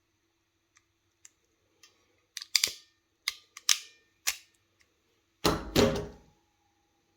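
Ratchet of a Preciva DEM49XN hexagonal ferrule crimping tool clicking as it crimps a 6 mm² wire-end ferrule. A few faint clicks come first, then several sharp, loud clicks, and near the end a longer, heavier clack.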